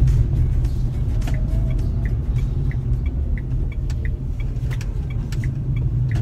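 Nissan Magnite's three-cylinder petrol engine and tyre noise heard from inside the cabin while driving: a steady low rumble. From about two seconds in, a light regular ticking joins it, about three ticks a second.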